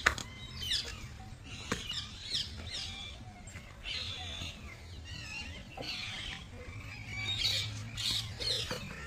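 Birds calling repeatedly with short squawks and chirps, with a couple of sharp clicks near the start.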